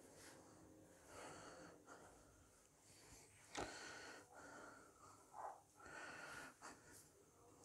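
Faint, soft squishing of hands mixing and kneading mashed-potato cutlet mixture in a glass bowl, with one sharp knock about three and a half seconds in.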